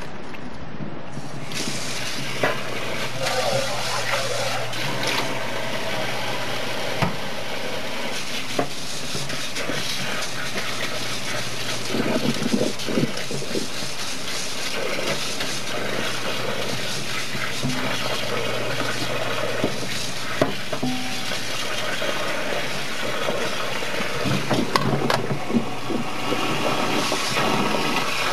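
Cooked somen noodles and their hot water poured from a pot into a stainless steel colander in a metal sink, then a kitchen tap running steadily onto the noodles as hands rinse and rub them in the colander to cool them. A few light knocks of the metal colander and bowl come through the water.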